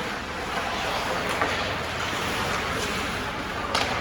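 Steady rush of ice hockey rink ambience, the mixed noise of the arena and play on the ice, with a sharp click near the end.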